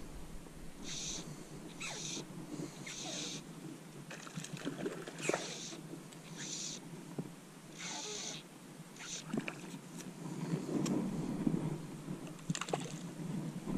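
Fly line being stripped in by hand through the rod guides: a short hiss with each pull, roughly once a second, with a few light clicks. Near the end a louder low rush.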